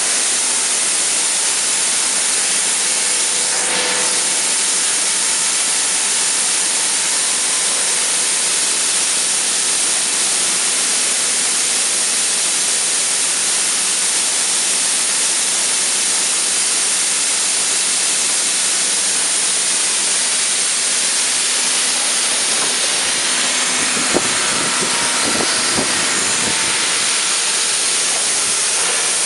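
Steady furniture-factory machinery noise: an even, loud hiss with a faint hum under it. A few knocks come about three-quarters of the way through.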